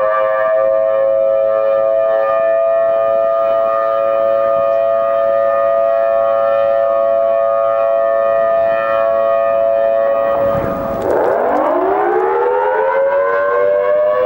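Whelen WPS electronic outdoor warning siren sounding a Thunderbolt-style wail during a siren test. It is held steady on a chord of a few pitches, then drops quickly in pitch about ten seconds in and climbs back up to the held chord near the end. Echoes off nearby buildings give it a dissonant sound.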